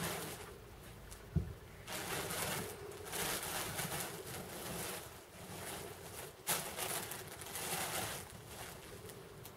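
Handling noise: uneven rustling that swells and fades, with two brief knocks, one just over a second in and one about six and a half seconds in.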